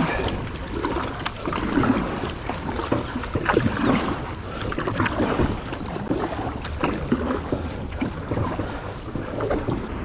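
Canoe paddling: paddle blades dipping and pulling through river water beside an aluminium canoe hull, with frequent short splashes, drips and clicks over the wash of moving water.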